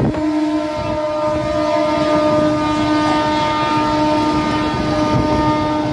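Three-phase MEMU electric train passing at speed close by: a steady rumble and rattle of the coaches on the rails, with a steady whine running through it.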